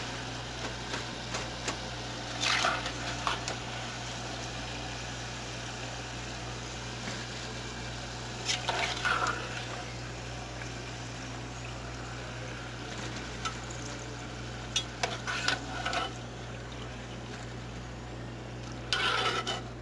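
Hot oil in a Fry Daddy deep fryer sizzling steadily as homemade french fries are lifted out with a slotted spatula. There are short scrapes and knocks of the spatula against the fryer and plate a few times.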